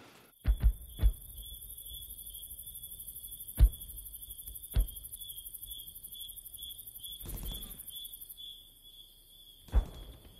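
Crickets chirping steadily in a fast, high trill, with an even higher rapid insect buzz that stops about eight seconds in. Several sharp cracks sound over them: three close together right at the start, two more a little later and one near the end.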